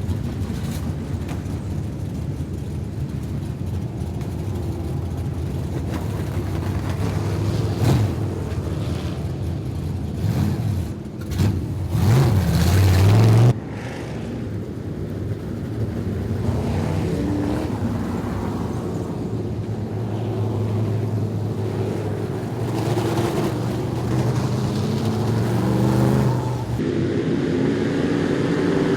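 Street stock race car engines running and revving on a dirt oval, their pitch rising and falling. About twelve seconds in, an engine grows louder and climbs in pitch, then cuts off suddenly.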